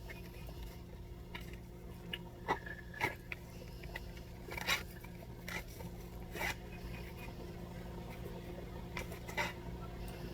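Tarot cards being handled and shuffled through: scattered soft clicks and paper rustles at irregular intervals over a steady low electrical hum.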